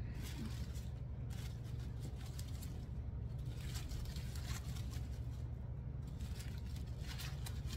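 Artificial flower stems and leaves rustling and scraping in short, irregular bursts as they are handled and pushed into the arrangement, over a steady low hum.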